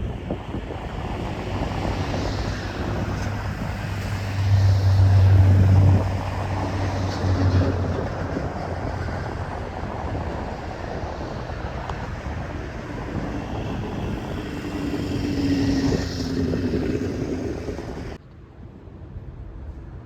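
Steady engine rumble of passing traffic, with a low hum at its loudest about five seconds in, cutting off suddenly near the end.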